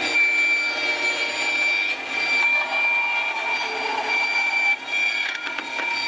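Bandsaw running with a steady high whine as its blade trims the edge of a molded leather pouch held in its mold.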